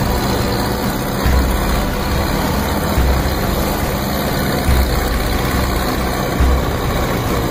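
A fishing boat's engine running steadily under a loud rush of wind and water, with a low thump about every second and a half as the bow meets the chop.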